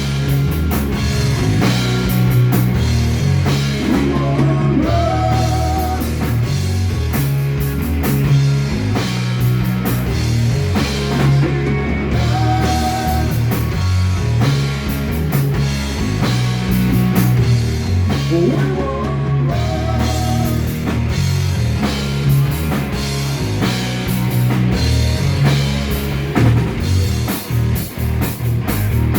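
Live rock band playing: distorted electric guitar with wavering held notes over bass guitar and a drum kit. Near the end the band plays short, choppy hits.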